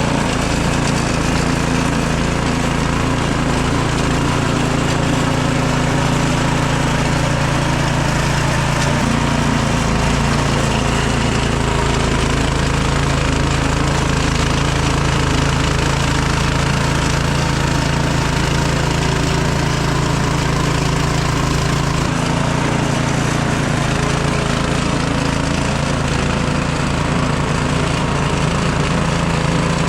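Craftsman snowblower's small gasoline engine running steadily under load, its note shifting slightly twice.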